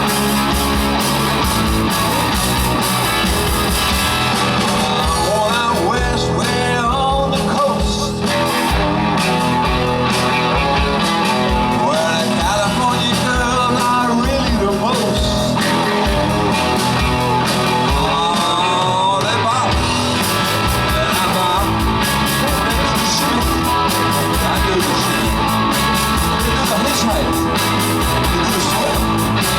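Live rock band playing loudly: electric guitar over bass and drums, with a lead line of bending, wavering notes twice in the passage.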